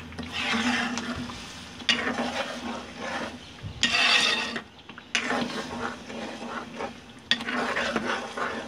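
A spatula stirring thick chicken gravy in a non-stick wok, scraping through it in repeated strokes about every second and a half, with the gravy frying and sizzling. The constant stirring keeps the cashew and poppy-seed paste from catching on the bottom.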